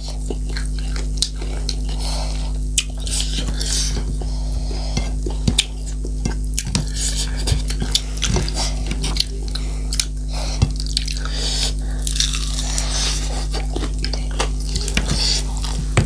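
Close-miked eating: a person chewing and biting food, with crisp crunchy bites and short clicks of dishes, over a steady low hum.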